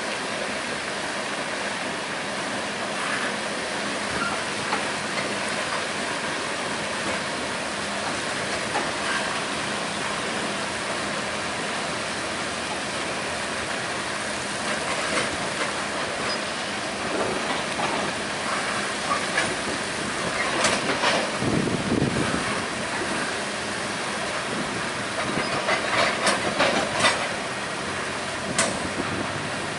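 Railroad tank cars of a freight train rolling past: a steady rumble and hiss of wheels on rail, with clusters of sharp knocks and clicks about two-thirds of the way through and again near the end.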